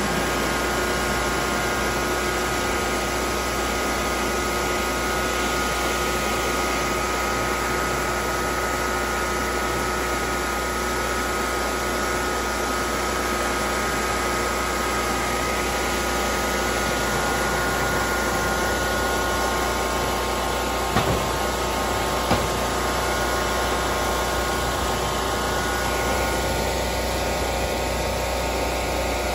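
The engine of an Ariens Mammoth runs steadily, with a constant engine note, as its front plow blade pushes heavy wet snow. Two brief knocks come about two-thirds of the way through.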